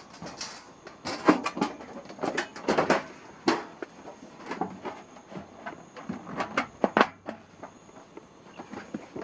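Irregular knocks, clacks and rustling of objects being handled, loudest in the first few seconds, over a faint steady high-pitched tone.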